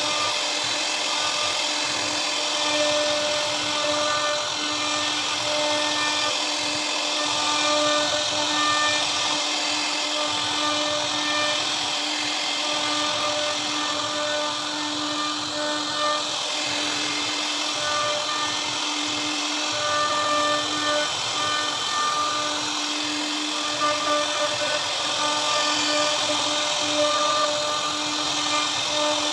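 CNC router spindle running steadily with a constant high whine while its bit carves relief patterns into a wooden door panel, over the hiss of the cut.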